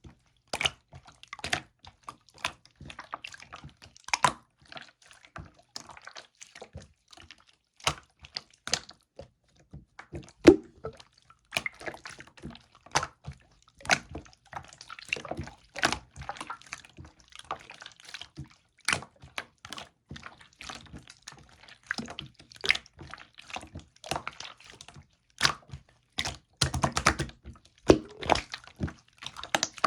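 Slime being squished and pressed by hand, giving irregular wet clicks and pops, with a quicker run of them near the end.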